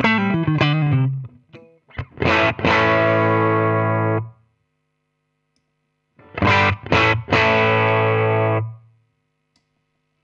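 Distorted electric guitar played through an AmS Hurricane 20 combo amplifier: a quick run of single notes, then short chord stabs each ringing into a held chord, twice, with about two seconds of silence between the phrases.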